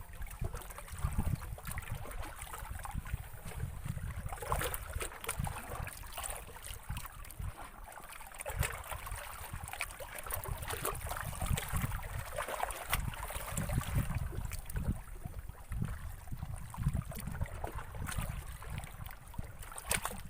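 Water lapping and splashing with a gusting low rumble of wind on the microphone.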